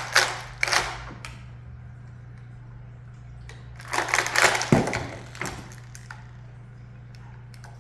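Handling noises: two bursts of rustling and knocking, with a few light clicks near the end, over a steady low hum.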